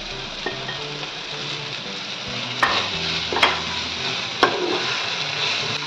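Chopped onion, tomato, carrot and capsicum frying with freshly added ground spices in a non-stick kadai: a steady sizzle as a metal spatula stirs the mix, with three sharp knocks of the spatula on the pan about two and a half, three and a half and four and a half seconds in.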